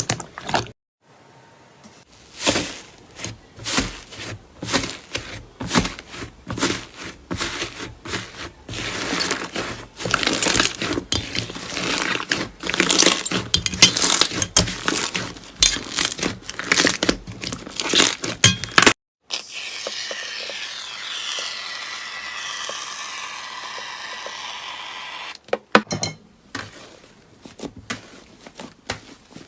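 Slime being squeezed and kneaded by hand, giving dense crackling and crunching clicks. For several seconds in the middle this gives way to a softer, steady sound without clicks, then the crackling returns near the end.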